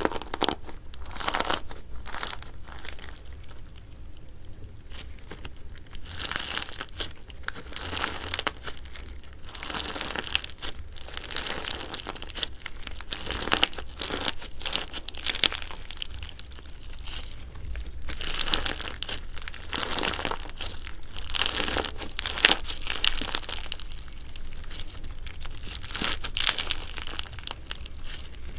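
Slime being squeezed and stretched by hand, giving rapid, irregular crackles and squelches in dense clusters, quieter for a few seconds near the start.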